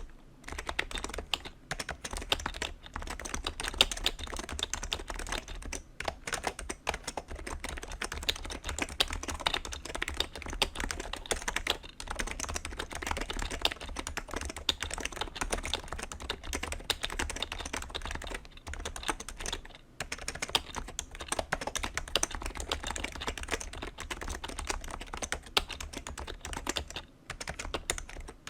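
Steady fast typing on a BTC 7150 keyboard: BTC dome-with-slider rubber-dome switches in a plastic case and plate, with double-shot ABS keycaps. A dense run of key clicks with a few brief pauses between bursts.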